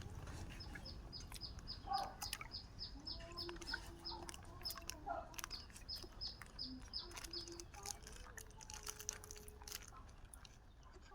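Birds calling: a run of short, high, falling chirps, about three a second, for most of the stretch. Lower drawn-out calls and scattered clicks sound beneath them.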